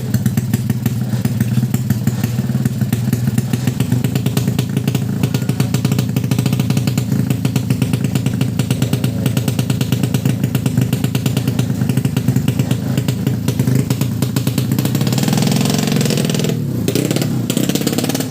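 Motorcycle drag-bike engine running steadily with rapid, even firing pulses, briefly revved up and down near the end.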